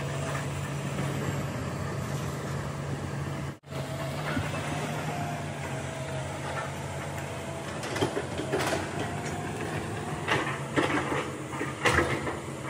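Hitachi hydraulic excavator's diesel engine running steadily, cutting out for an instant about a third of the way in. A faint whine sits over the engine for a few seconds in the middle, and from about two-thirds in come a series of sharp metal clanks and knocks as the machine travels and works its bucket by a log.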